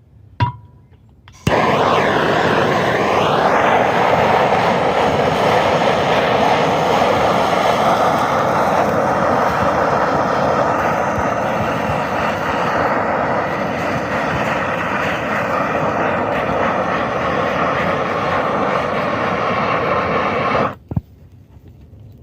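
Gas torch burning with a loud, steady hiss, heating a wet gutter to dry it so that steam comes off it. A short click about half a second in; the flame comes on suddenly about a second and a half in and shuts off suddenly near the end.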